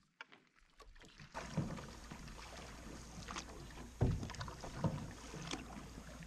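Canoe paddling on a lake: paddle strokes splashing and pulling through the water over a steady hiss of wind and water, with a few low thumps, the loudest about four seconds in. The first second is nearly silent.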